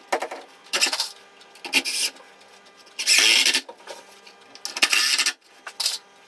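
Handling sounds of a pine batten being slid and tapped into place against a wooden bed frame on the floor: several short scraping and clattering bursts, the loudest about three seconds in.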